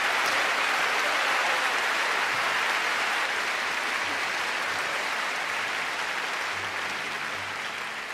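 Audience applauding after a live folk song, the clapping gradually dying down.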